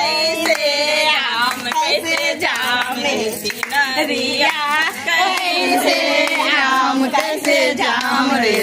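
Group of women singing a traditional Hindu wedding folk song together in loud, wavering voices, with some hand clapping.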